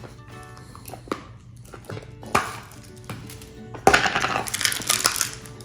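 Plastic slime tubs being handled: scattered clicks and knocks, then about a second and a half of dense clattering and crinkling about four seconds in. Faint background music plays underneath.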